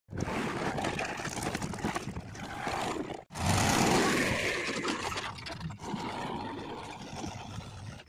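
Diesel machinery running: a JCB 3DX backhoe loader's engine, then, after an abrupt cut about three seconds in, a Mahindra 475 DI tractor's engine heard close up and louder.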